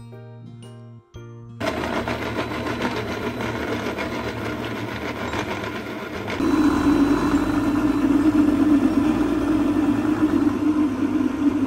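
Light background music, then a kitchen-machine blender with a glass jug starts up about a second and a half in, chopping shallots, garlic and red chillies. About halfway through it gets louder and settles into a steady hum as the mix turns to a smooth spice paste.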